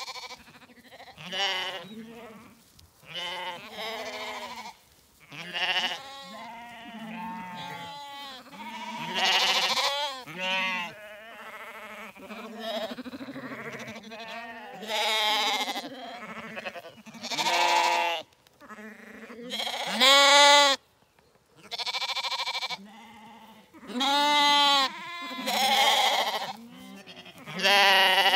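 Zwartbles lambs bleating, many calls overlapping one after another, some long with a wavering pitch.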